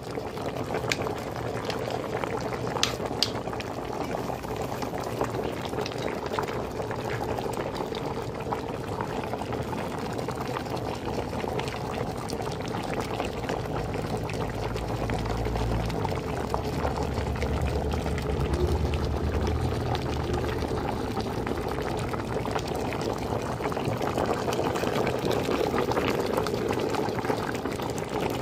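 Hare stew with potatoes bubbling steadily in a pot at a boil, a continuous crackly bubbling. A low hum joins for several seconds midway.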